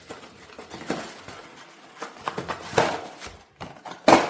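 Cardboard packaging being handled while a solenoid valve is unpacked: scattered rustles and scrapes, the loudest and sharpest about four seconds in.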